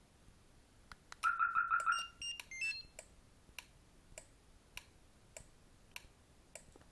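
Eaglemaster E8 car alarm system sounding electronic signals: a fast burst of about five beeps, then a brief run of higher stepped tones. After that comes a steady clicking, one click about every 0.6 s.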